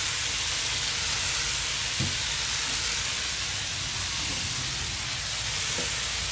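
Chicken quarters sizzling steadily in a nonstick grill pan greased with margarine, over a low flame. A light knock sounds about two seconds in.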